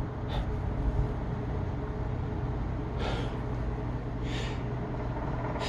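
A man breathing in short, audible breaths between sneezes during a sneezing fit, three breaths a second or so apart over a steady low rumble.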